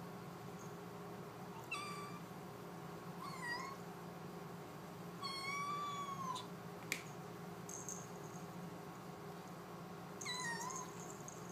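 Kitten meowing four times in a high voice, the third call the longest, begging for its food. A single sharp click about seven seconds in.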